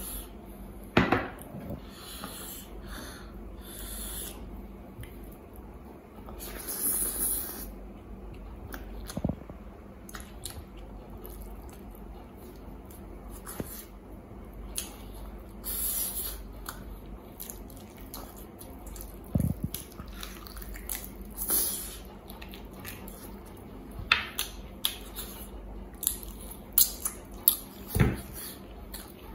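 Rice and curry being mixed by hand on a wooden serving board: irregular wet squishing with scattered clicks and taps, and a cluster of sharper taps near the end.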